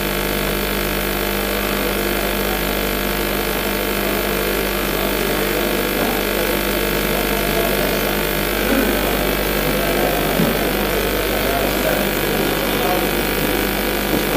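Steady electrical mains hum with many overtones, with a faint indistinct murmur of the hall beneath it.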